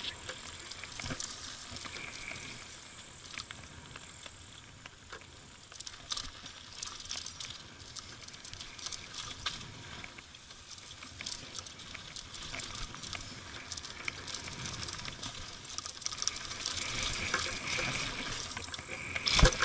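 Mountain bike rolling fast down a dry dirt and gravel trail: a steady tyre hiss with frequent clicks and rattles from the bike over the bumps, growing louder over the last few seconds. A sharp knock about a second before the end.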